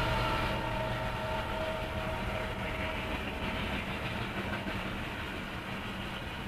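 Freight train of tank cars rolling past, steel wheels rumbling and clacking on the rails, slowly getting quieter, heard from inside a parked car. A steady chord of tones from the train fades away within the first second.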